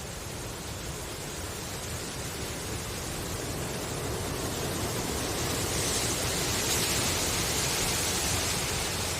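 Bamboo leaves rustling in a breeze: a steady, even hiss that slowly swells louder, strongest about two-thirds of the way in.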